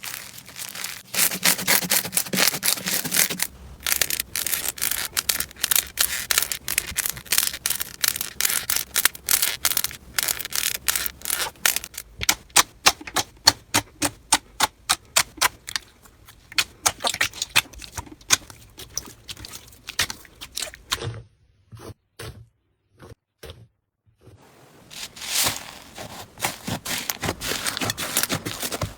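Slime being squished and played with, making rapid, dense clicking and crackling. It drops to a few single clicks for about three seconds near the end, then the crackling resumes.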